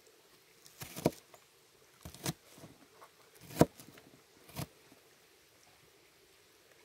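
A handful of light clicks and knocks, spaced about a second apart, from camp cooking gear being handled while instant noodles are prepared.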